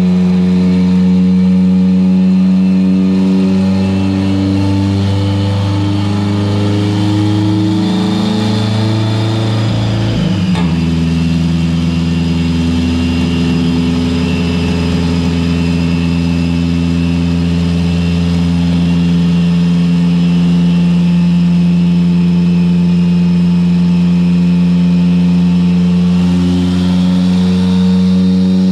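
2011 Subaru STI's turbocharged engine running at a steady speed, with a brief break and a change of pitch about ten seconds in.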